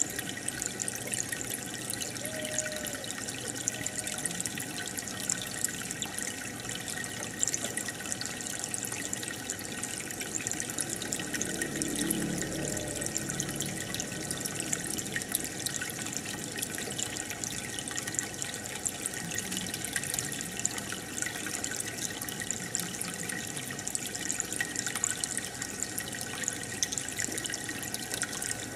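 Steady trickling and bubbling of aquarium water, full of small drips and splashes.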